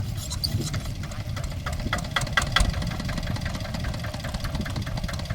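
Kubota RD65 DI single-cylinder diesel engine on a hand tractor running steadily, a low rumble with a regular clatter of knocks, about five a second.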